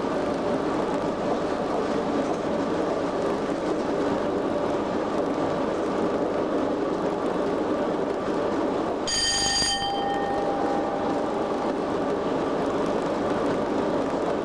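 Steady running noise inside the cab of Class 87 electric locomotive 87033 travelling at speed, wheels on rail with a constant hum. About nine seconds in a short bell-like ring sounds and fades over a second or two.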